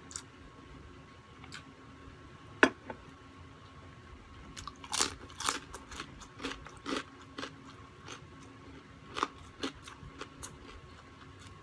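A person chewing and crunching food with the mouth close to the microphone, with irregular sharp crunches. The loudest comes about two and a half seconds in, and a run of them follows between about five and seven and a half seconds.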